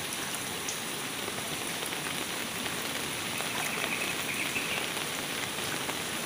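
Rain falling onto floodwater: a steady, even hiss of drops hitting the water surface.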